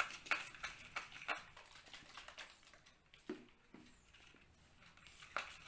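Faint, scattered clicks and taps of a spoon in a small bowl as slime activator is added to the glue mixture and stirred.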